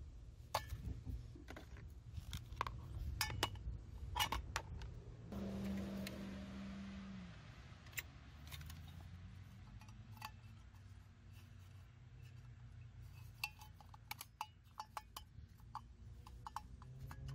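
Light metal clinks and clicks on and off as the parts of a small metal camping wood stove and a metal plate are handled and fitted together, with a brief low steady hum about five seconds in.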